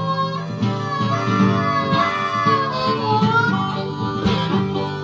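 Harmonica playing a melody with sliding, bent notes over strummed acoustic guitar: an instrumental break in a live folk song.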